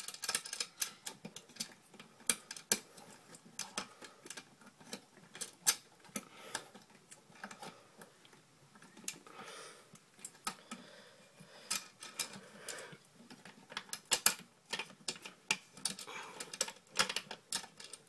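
Irregular clicks, taps and rattles of hands working wire and small metal fittings at the bottom hub of a meter socket, with a quieter rustling stretch midway.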